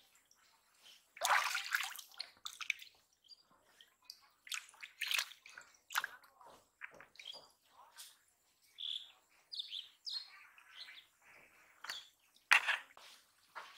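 Hands splashing and sloshing in shallow muddy water while digging in a hole by hand, in irregular bursts, the loudest about a second in and again near the end.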